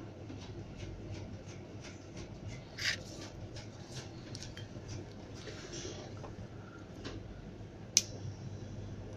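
Light clicks and taps of an opened smartphone and metal tweezers being handled on a workbench, with one sharp click about eight seconds in. A steady low hum runs underneath.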